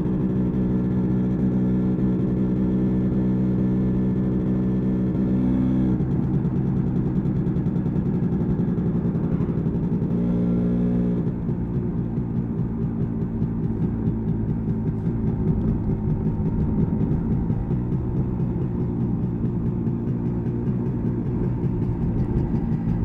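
Single-cylinder two-stroke engine of a 1986 MZ ETZ 250 motorcycle running under way, heard from on board. Its note holds steady, changes about six seconds in, and from about eleven seconds in settles into a lower, rougher note as the throttle or gear changes.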